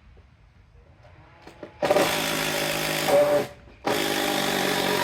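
A power tool running in two bursts of about two seconds each, starting and stopping sharply with a short pause between.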